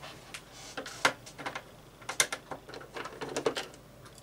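A screwdriver working the screws out of the plastic bottom case of a Commodore 1571 floppy drive: a string of small, irregular clicks and ticks of metal on plastic, busiest around three seconds in.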